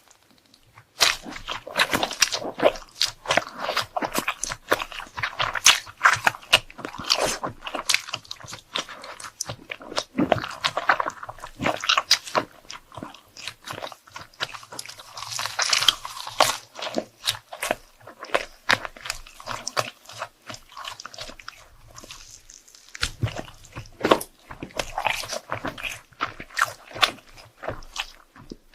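Close-miked eating: crunchy bites and steady chewing of crisp food, a dense run of crackles with two brief lulls.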